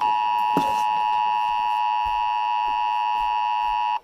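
Emergency Alert System attention signal: a loud, steady two-tone alert tone, marking the start of a severe weather warning. It cuts out for a moment near the end.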